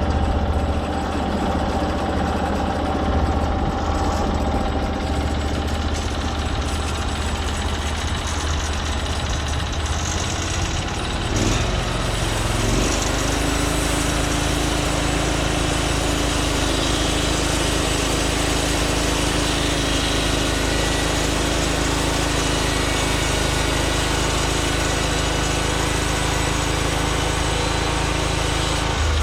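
Norwood MX34 bandsaw mill's small gasoline engine running steadily while the band blade saws a log into boards, the engine note changing and settling at a new steady pitch about twelve seconds in.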